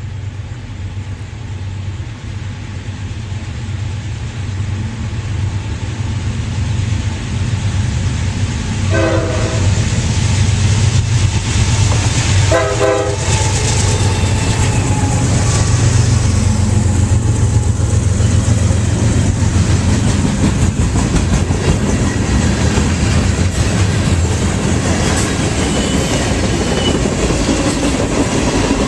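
CSX freight train passing behind five diesel locomotives: the engines' low drone swells over the first ten seconds, the horn sounds two short blasts about nine and twelve seconds in, and then the wheels clack over the rail joints as the freight cars roll by.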